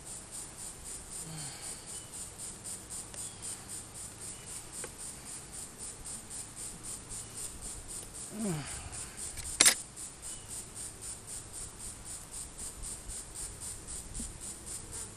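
Insects singing in a steady, high, pulsing chorus at about three pulses a second. About ten seconds in comes a single sharp click from the metal hive tool working the wooden frames.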